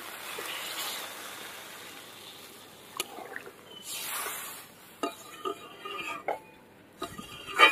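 Water poured into a hot aluminium kadai of fried potatoes, tomatoes and spice paste, hissing and sizzling as it hits. Then a metal spatula stirs the curry, with several scraping clinks against the pan.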